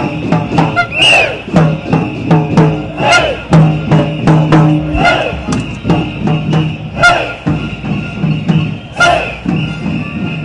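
Street protest crowd noise: drums beating in a steady rhythm while whistles and horns blow. A louder burst from the crowd comes about every two seconds.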